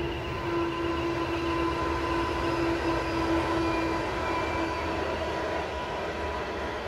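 Indian Pacific passenger train, hauled by an NR class diesel locomotive, rolling across a railway bridge: a steady rumble of wheels on rails, with a steady hum that fades about four seconds in.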